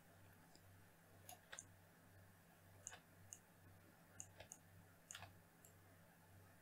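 Faint computer mouse button clicks, about eight sharp clicks that mostly come in quick pairs of press and release.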